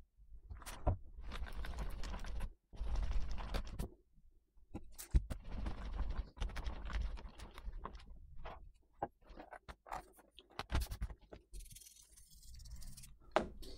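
A polishing cloth rubbing over a plastic laptop lid in wiping strokes. After that come scattered knocks and clicks as the laptop is handled and turned over, and a brief hiss near the end.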